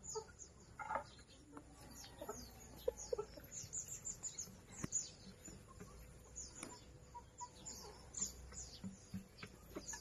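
Backyard hens clucking softly and intermittently as they forage, with many short, quick high chirps scattered throughout.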